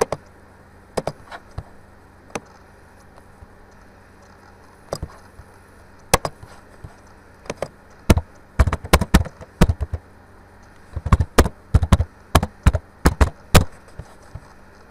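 Computer keyboard keys being typed: a few scattered clicks, then two quick runs of keystrokes in the second half.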